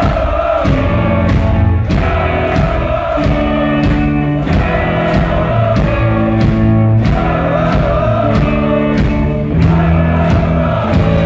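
Live rock band playing loud, electric guitars and bass over drums hitting about twice a second, with singing over the music.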